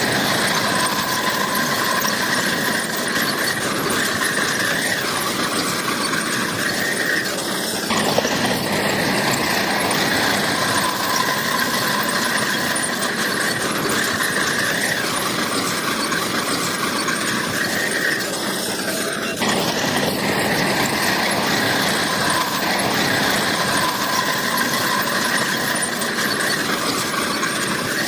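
Crawler bulldozer working, its steel tracks squealing over the engine's steady running. The sound changes abruptly about 8 and 19 seconds in.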